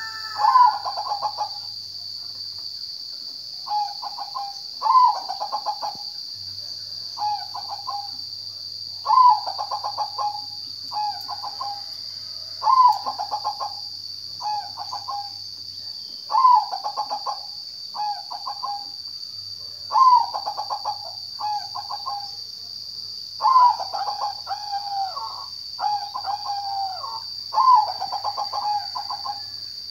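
Zebra dove (perkutut) cooing over and over, each phrase a sharp opening note running into a quick rattle of short pulsed coos, about one phrase every one to two seconds. A steady high-pitched hiss runs underneath.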